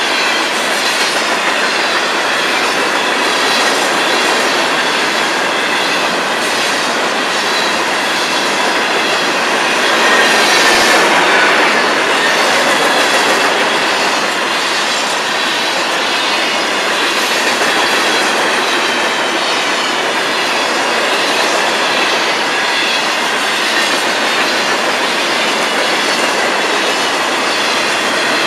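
A long freight train rolling past: steel wheels of empty coal hoppers and then tank cars running over the rails in a steady rumble with regular clacking. It gets briefly louder around ten seconds in.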